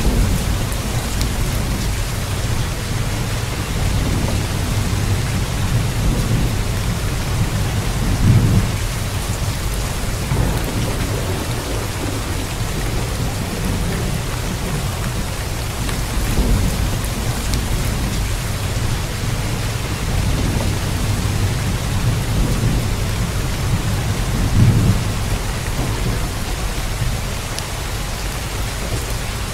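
Steady rain, an even hiss of drops, over a low rumble that swells about eight seconds in and again near twenty-five seconds.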